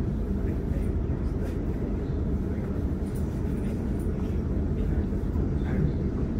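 Sydney suburban train running between stations, heard from inside the carriage: a steady low rumble of wheels on track with a few faint clicks.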